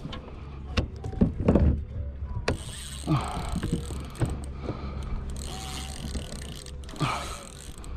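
Wind buffeting the microphone with a steady low rumble, over water slapping at a kayak hull, with scattered knocks and creaks of gear on the kayak.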